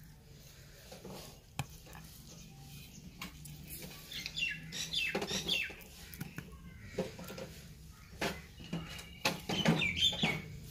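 Small birds chirping in short, quick, falling calls, in two bouts about four and nine seconds in, with a few sharp clicks from a knife cutting raw chicken drumsticks against a clay bowl.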